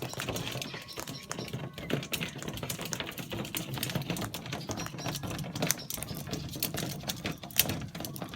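A flock of white cockatoos pecking and cracking food on the verandah: a dense, irregular patter of sharp beak clicks and taps.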